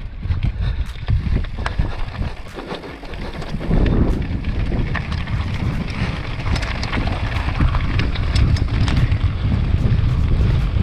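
Strong wind buffeting the microphone in a low, gusting rumble, over a mountain bike's tyres crunching and rattling across loose rock and gravel. About four seconds in the rumble and the clatter of small knocks grow louder and busier.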